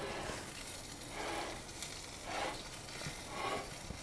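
NY strip steak sizzling in a hot Lodge cast iron pan, the sizzle swelling and fading about once a second.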